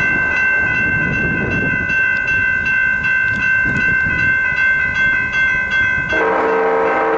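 Graham-White electronic crossing bell ringing in rapid, evenly repeating dings at the activated railroad crossing. About six seconds in the bell gives way to the long steady blast of the approaching freight locomotive's air horn.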